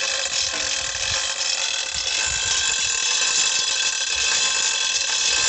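A steady high-pitched buzzing made of several held tones, holding an even level throughout.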